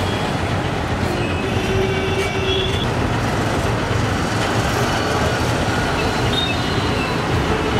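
Steady din of road traffic, with a few faint high tones coming and going.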